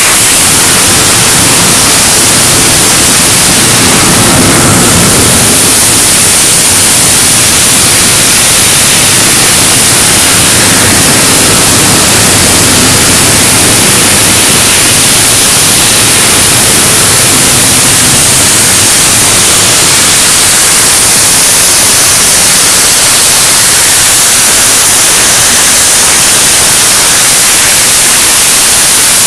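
Loud, steady hiss of a multi-torch flame-cutting machine, its row of oxy-fuel torches cutting steel plate into flange strips.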